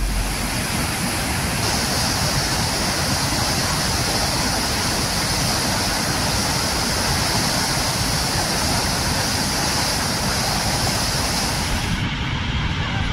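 White-water rapids of the Niagara River rushing: a loud, steady hiss of churning water. Near the end the sharp high hiss drops away, leaving a duller rush.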